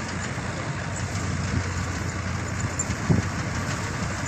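Tractor engine running steadily while driving a front-mounted wheat reaper, a low drone over a broad noisy haze, with one brief louder knock about three seconds in.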